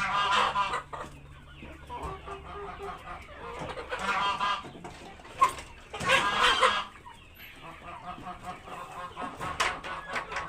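A flock of chickens clucking, with louder drawn-out calls every few seconds; the loudest comes about six seconds in.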